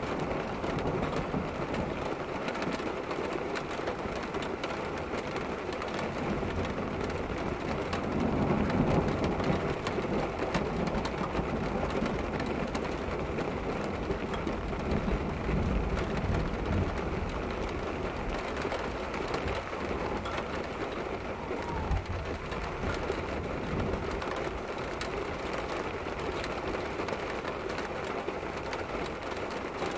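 Heavy storm rain and wind heard from behind a rain-streaked window: a steady rushing noise that swells about eight seconds in and again around fifteen seconds.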